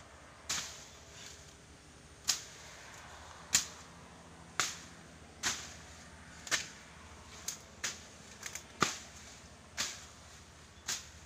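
Weeds and grass stems slashed by a hand-swung blade: sharp swishing cuts about once a second, with a quick run of three or four near eight seconds in.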